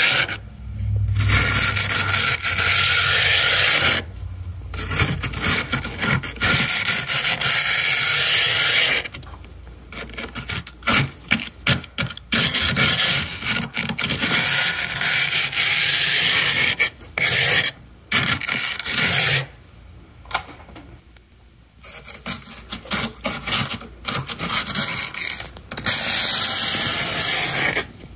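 A plastic scraper scraping thick freezer frost off a wall in long, loud scrapes. Between the scrapes come stretches of quieter crumbly crackling as the frost breaks away.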